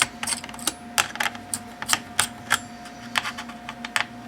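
Screwdriver working the screws on a laptop's underside: irregular sharp clicks, two or three a second, over a faint steady hum.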